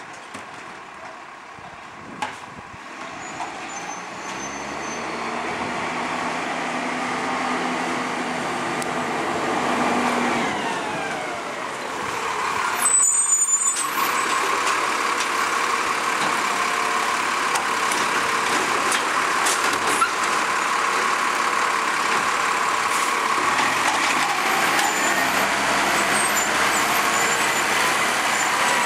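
Iveco ACCO side-loader garbage truck's diesel engine growing louder as the truck comes up the laneway, with the revs rising and then dropping. About halfway through there is a short loud air-brake hiss as it stops. After that it runs steadily and loudly, with a held whine, while its automated arm works a wheelie bin.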